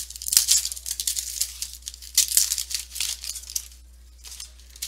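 Trading cards sliding and rubbing against each other as a stack is flipped through by hand: a run of quick papery swishes and scrapes that dies down after about three and a half seconds.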